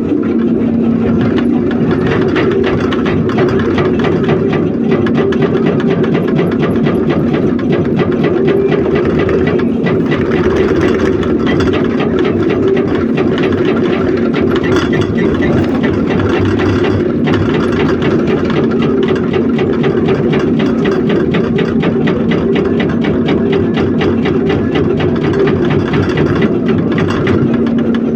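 Heavy diesel engine of quarry machinery running steadily and evenly throughout.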